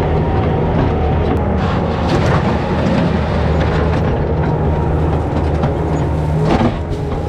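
Skid steer running with a steady engine note, with continual clattering and rattling over it.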